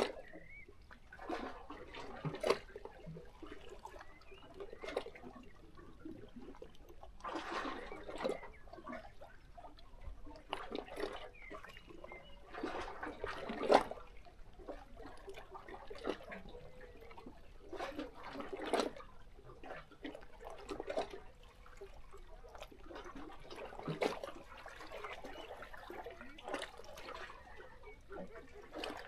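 Small sea waves lapping and sloshing against shoreline rocks, coming in irregular surges every one to three seconds with sharper splashes, the strongest about halfway through.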